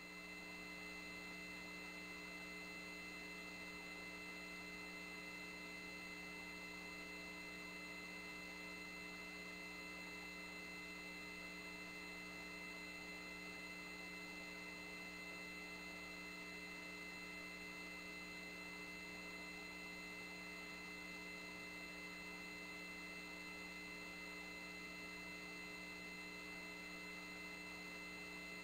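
Faint steady electrical hum with a few thin high whining tones on the launch-control audio feed, heard while the comm loop is idle between calls.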